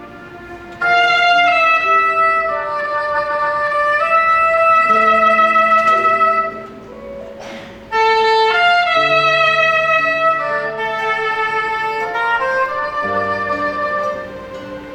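Soprano saxophone playing a slow melody in long held notes over a backing accompaniment. It pauses briefly between phrases, and new phrases begin about a second in and again about eight seconds in.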